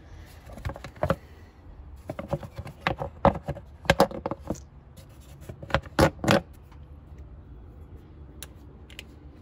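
Handling noises in an engine bay: a run of sharp clicks and knocks, hand and plastic or metal parts knocking together, which die away after about six and a half seconds, over a faint steady low hum.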